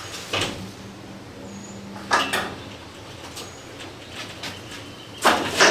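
Polycarbonate storm panel being slid and pushed into an aluminum channel: three short scraping knocks, the loudest near the end.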